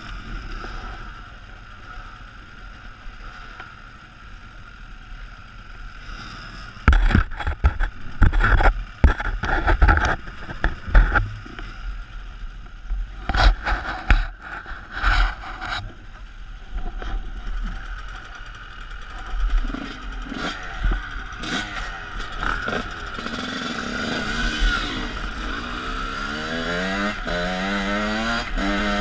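Enduro dirt bike engines running at idle, with loud knocks and clatter close to the helmet microphone in the middle stretch. From about 23 s the rider's Honda dirt bike pulls away, its engine revving up in repeated rising sweeps as it shifts through the gears.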